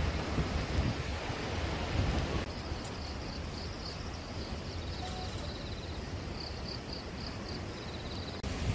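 Wind rumbling and buffeting on the microphone outdoors. Faint, high chirping repeats in a quick rhythm from about two and a half seconds in until near the end.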